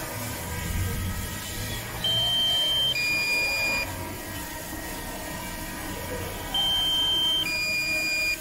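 Drone controller's low-battery warning: a two-note alarm, a higher note then a lower one, each just under a second long, sounding twice about four and a half seconds apart over a steady background hum.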